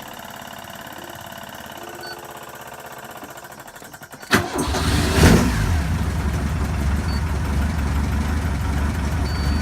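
A steady low hum, then a sharp click a little over four seconds in as the car's engine cranks and catches with a brief rise in revs. It then settles into a steady idle.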